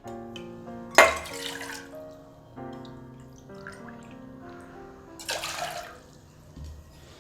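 Background music of soft held notes, with water poured into a cooking pan in two short pours, about a second in and again about five seconds in.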